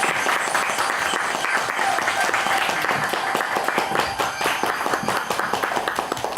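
Audience applauding: many hands clapping in a dense, steady patter that eases slightly towards the end.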